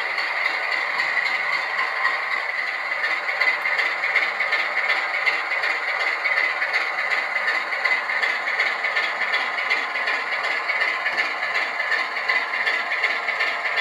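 Bachmann Class 25 model diesel locomotive running steadily along the track: a continuous rattle and clatter of wheels and motor, mixed with the diesel engine sound from its DCC sound decoder's small onboard speaker.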